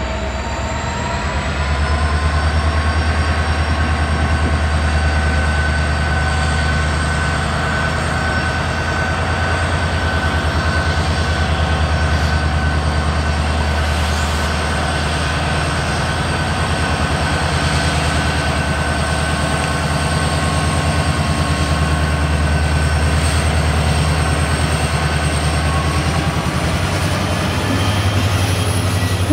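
EMD WDG-4 diesel-electric locomotive working hard as it hauls a container train past: a deep, steady engine drone with a steady high whine above it, growing louder in the first couple of seconds and holding as the locomotive comes alongside.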